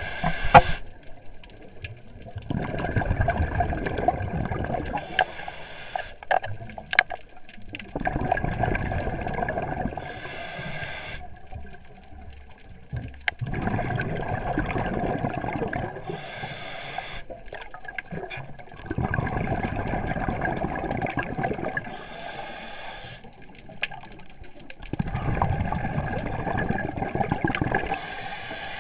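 Scuba diver breathing through a regulator underwater, in a steady cycle about every six seconds: a short hiss on each inhale, then a long burble of exhaled bubbles. There is a sharp knock about half a second in.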